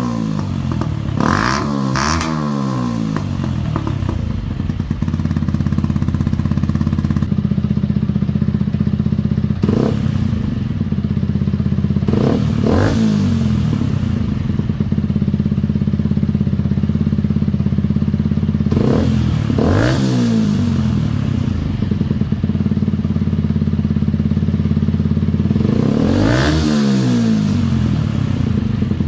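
Yamaha YZF-R125's 125 cc single-cylinder four-stroke engine idling through its exhaust, with short throttle blips: a pair near the start, three about a third of the way in, a pair around two-thirds of the way, and one longer rev near the end.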